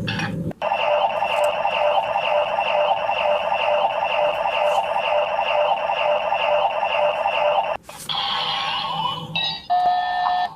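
Electronic henshin-belt sound effect: a rapidly repeating, alarm-like electronic beeping that runs for about seven seconds, then changes to a different electronic effect ending on a steady tone.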